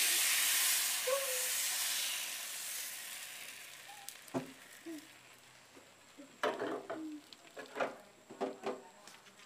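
Tapioca-starch batter for cilung poured into a hot pan, sizzling loudly at once and fading away over about four seconds as it sets.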